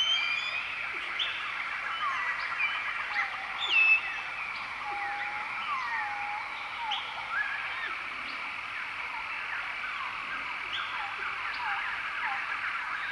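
A chorus of many birds whistling and chirping, short overlapping notes sliding up and down, with one louder call a little under four seconds in.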